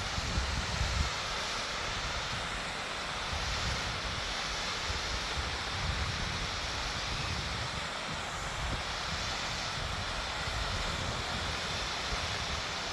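Waterfall rushing steadily, with low, uneven wind buffeting on the microphone.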